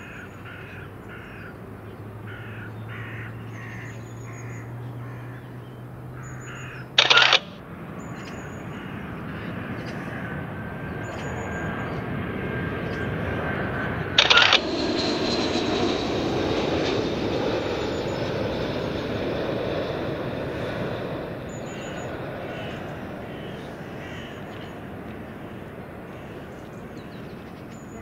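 Outdoor ambience with birds calling in short repeated calls early on, and a low rushing rumble that swells and fades in the middle. Brief loud bursts interrupt it about a third and half of the way in and at the very end, where the recording cuts between clips.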